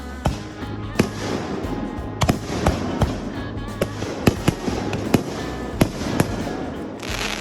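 Fireworks going off: about a dozen sharp bangs at irregular intervals over continuous crackling. Music plays underneath.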